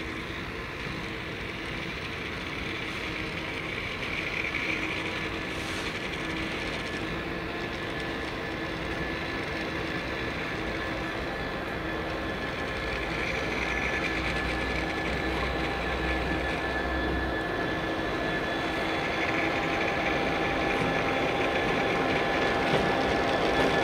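Class 66 diesel locomotive's two-stroke EMD V12 engine running as it moves slowly at shunting speed, with a steady high whine. It grows gradually louder as the locomotive draws closer.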